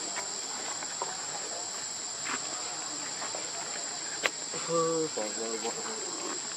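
Steady chorus of insects, a continuous high-pitched buzz. About four seconds in there is a sharp click, and just after it a short, low, voice-like call.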